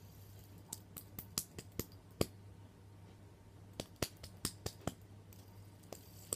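Plastic fidget spinner being flicked and handled by hand: two quick runs of sharp clicks and taps, several a second, over a faint steady low hum.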